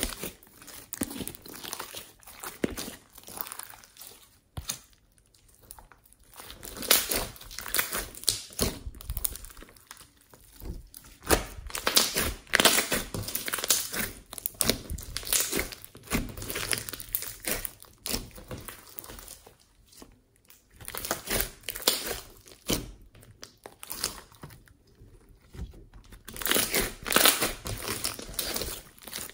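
Hands squeezing and kneading glossy slime mixed with foam beads: irregular runs of small wet clicks and pops as the slime is pressed and folded, falling briefly quiet a few times.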